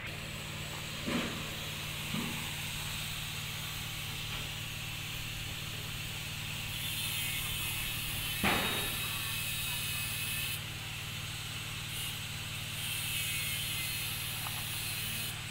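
Steady low machine hum with a constant hiss, and a few light knocks, the loudest about eight and a half seconds in.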